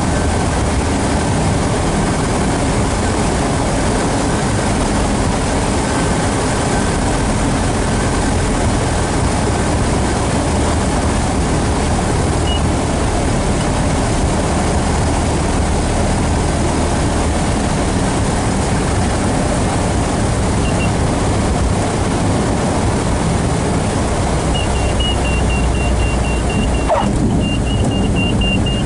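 Maule MX-7 light aircraft's piston engine and propeller at low power, with wind noise, heard from inside the cockpit through the landing. In the last few seconds a rapid high beeping sounds, and there is a brief knock shortly before the end.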